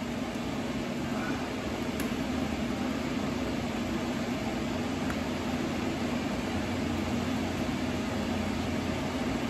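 Steady mechanical hum of a running fan or air-handling unit, with two faint light clicks about two and five seconds in.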